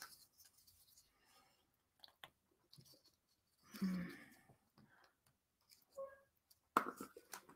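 Faint scattered clicks and taps of small painted wooden puzzle pieces being handled and fitted together, with a soft sigh about four seconds in.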